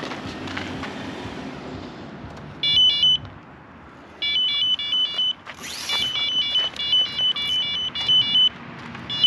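Electronic carp bite alarm beeping in fast continuous runs, the sign of a fish taking line. There is a short burst about three seconds in, then a longer run of rapid beeps from about four seconds to near the end.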